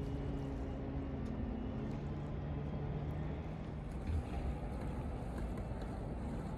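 An engine running with a steady low drone that fades out about three and a half seconds in, over a low outdoor rumble.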